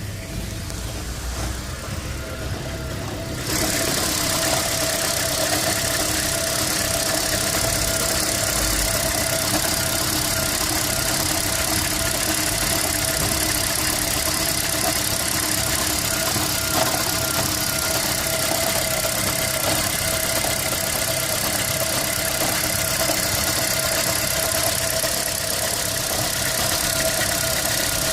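2011 Toyota Prius's 1.8-litre four-cylinder petrol engine running at idle with the misfire it is being recorded for. It grows suddenly louder about three and a half seconds in, then runs steadily.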